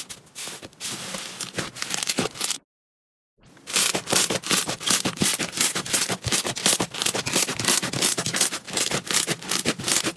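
Slime being squeezed and worked, a dense run of crackles and small pops. It cuts off for under a second a little after two and a half seconds in, then comes back louder.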